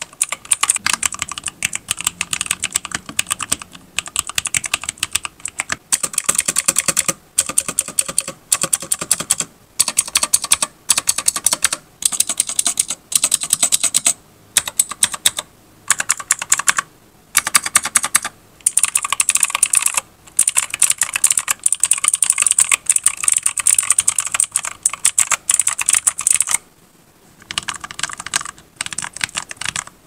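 Continuous rapid typing on an Anko Mini 60% mechanical keyboard in stock form, a dense clatter of keystrokes broken by short pauses. Near the end, after a brief gap, the typing goes on on the same keyboard modded with a foam base and switches lubricated with petroleum jelly.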